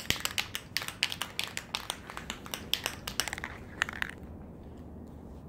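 Rapid, irregular crackling and clicking that stops about four seconds in, leaving a low steady hum.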